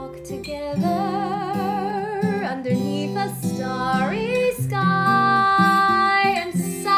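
A song: a woman singing with vibrato over acoustic guitar, holding one long note in the second half.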